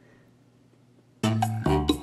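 Near silence for about a second, then a rhythmic music track with a strong bass line starts, played through a pair of loudspeakers driven by a homemade TDA2003 chip stereo amplifier under test.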